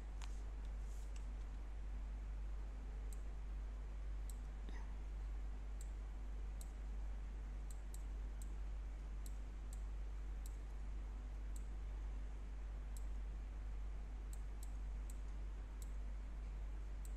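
Computer mouse button clicks, irregularly spaced, about one or two a second, as schematic components are picked up and dropped into place. Under them runs a steady low hum.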